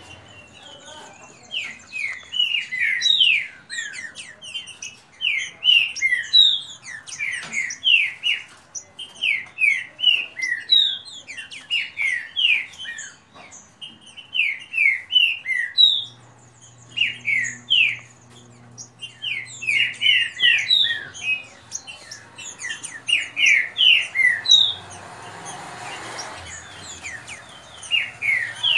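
Caged green-winged saltators (trinca-ferro) singing in a song contest: fast phrases of short, clear whistled notes, repeated every second or two with brief pauses between.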